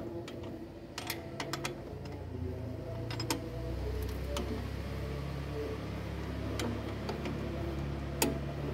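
A ratchet and spanner working the engine-mount bolts: sharp metallic clicks, a quick run of them about a second in, a few more around three seconds and one loud click near the end. Underneath is a low rumble that grows louder about three and a half seconds in.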